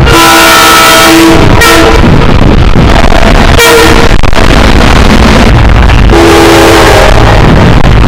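Train horn blasting: a long blast at the start, a short toot about three and a half seconds in, and another blast of about a second near the end. Everything is boosted to heavy clipping distortion, with a loud rumbling roar between the blasts.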